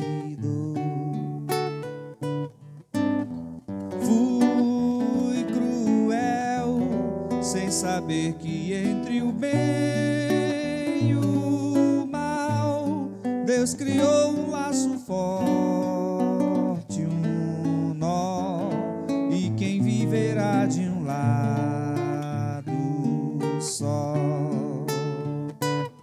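Acoustic guitar playing a Brazilian MPB song, with a man's voice singing along at times without clear words.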